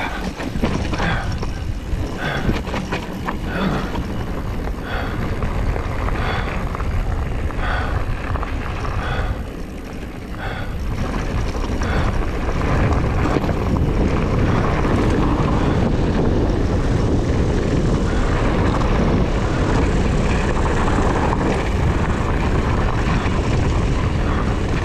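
Wind rushing over the microphone as a mountain bike rolls fast down a dirt trail, with tyre noise and knocks and rattles from the bike over bumps. The rush grows louder and steadier about halfway through.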